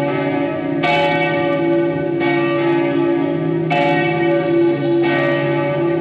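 Church bells ringing, a new bell struck about every second and a half, four strikes in all, each ringing on and overlapping the ones before it.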